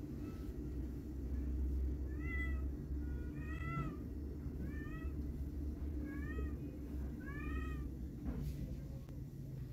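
Young fawn kitten meowing five times, high-pitched calls that each rise and fall, about one every second and a half: a kitten calling after its mother.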